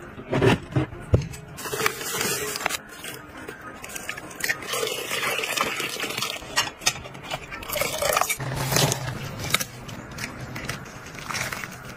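Kitchen food-prep sounds: liquid poured onto lobsters in a steamer and hot water poured into a glass bowl of chili sauce, among repeated clinks, knocks and scrapes of containers and utensils.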